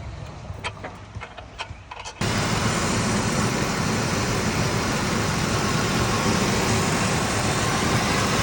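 A few faint clicks and knocks, then about two seconds in an engine is suddenly heard running steadily and loudly.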